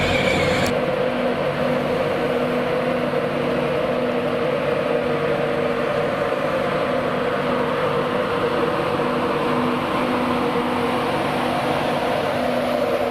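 Class 91 electric locomotive moving off with its train, a steady electric hum as the locomotive and its coaches roll past.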